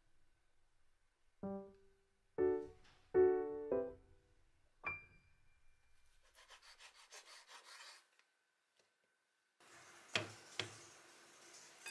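Sparse keyboard-like background music notes, then a kitchen knife slicing thin bacon on a wooden cutting board in a quick run of strokes, about six a second for nearly two seconds. Near the end comes a faint hiss with two sharp knocks.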